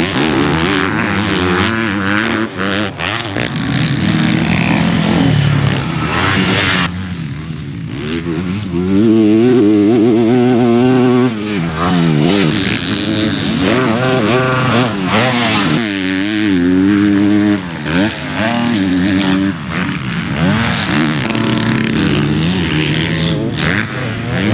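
Four-stroke motocross bike engines revving hard, the engine pitch repeatedly climbing and dropping. The sound changes abruptly about seven seconds in.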